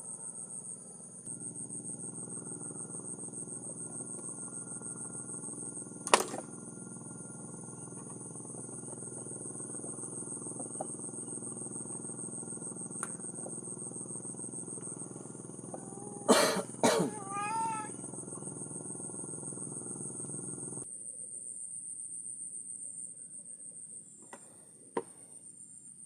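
Crickets chirring steadily in a high-pitched drone, over a low steady hum that cuts off about twenty seconds in. A few sharp knocks stand out, one about six seconds in and a quick pair around sixteen seconds.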